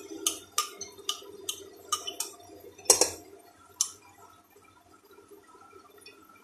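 Soaked chana dal (split chickpeas) being tipped from a bowl into an aluminium pressure cooker: wet grains and their soaking water patter in as a run of small clicks. A sharp knock on the cooker comes about three seconds in, with a lighter one just after. A steady low hum runs underneath.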